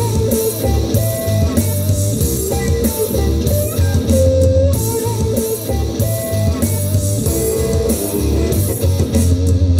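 Guitar-led music with a strong bass line, played loud through Edifier G2000 desktop gaming speakers in movie mode at about 90 decibels on a sound meter.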